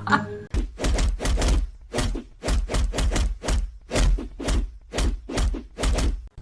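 A series of knocking thumps with a deep low end, about two or three a second and unevenly spaced, starting about half a second in.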